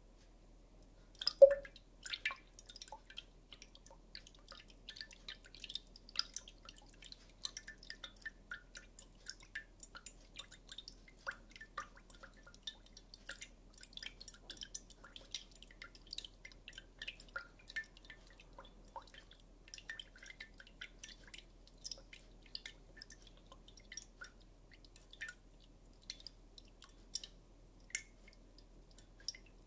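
Liquid fizzing in a glass beaker of yellow solution as a chemical reaction runs, with a dense, irregular patter of tiny pops and crackles. A single sharp clink with a short ring sounds about a second and a half in.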